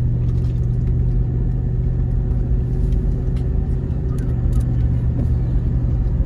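A car driving, heard from inside the cabin: a steady low drone of engine and road noise.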